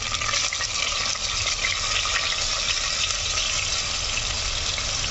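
Hot oil sizzling steadily in an aluminium kadai as chopped onion is tipped in on top of frying cumin, garlic and ginger.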